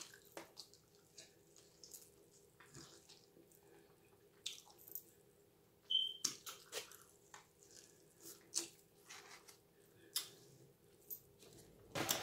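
Chewing and biting on spicy chicken wings, heard close up as a string of short wet mouth clicks and crunches, with a brief high squeak about six seconds in. The loudest strokes come about six seconds in and again near the end.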